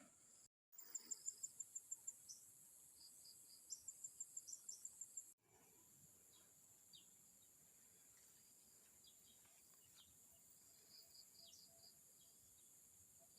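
Faint outdoor insect chorus: a steady high drone. About a second in and again about four seconds in come two runs of rapid, high, evenly spaced chirps, roughly seven a second. The sound drops away abruptly about five seconds in, leaving only the faint drone with scattered small ticks.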